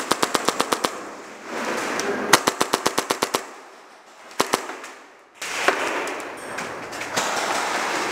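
Airsoft gun firing on full auto: a short burst of rapid shots, about ten a second, right at the start, another burst of about a second beginning a little over two seconds in, then two single shots near the middle. A steady rushing noise fills the last few seconds.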